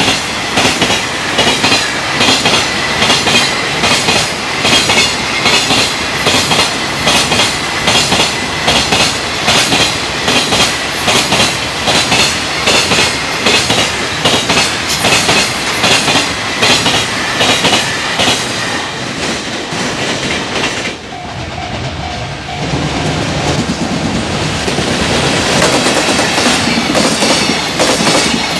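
Container freight train wagons passing at speed over rail joints, the wheelsets striking each joint in a fast, regular clickety-clack rhythm. About 21 s in the clatter drops away suddenly, and a second freight train's joint clatter builds up again.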